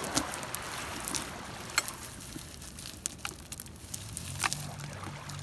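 Wet cast net being handled by hand: a steady rustling hiss with a few scattered sharp clicks, and a faint low hum coming in near the end.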